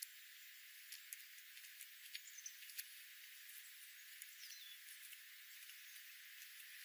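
Near silence: a faint hiss with scattered light clicks and a couple of faint, high, quick chirps from small birds.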